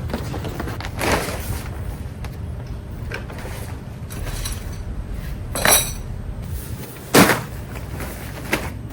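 A few clinks and knocks of hard objects being handled over a low steady hum, with a ringing clink near the middle and a sharp thud about a second later.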